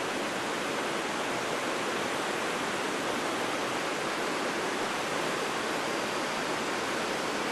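Steady, even rush of river water.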